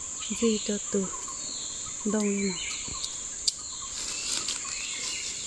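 Forest insects droning steadily at a high pitch, with birds chirping over them. A few short, low, falling calls come about half a second in and again about two seconds in, and a sharp click sounds about three and a half seconds in.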